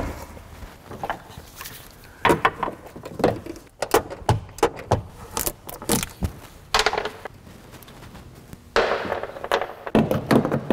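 Irregular metallic clinks and small rattles as the rear strut's upper mounting nuts are worked off by hand with a ratchet and 14 mm deep socket. Near the end comes a denser clatter as the loosened strut is worked in the wheel well, catching on the stabilizer link.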